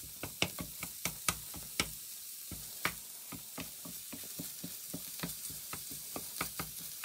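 Vegan mince sizzling in hot oil in a frying pan, with a wooden spatula repeatedly clicking and scraping against the pan as it stirs and breaks up the mince.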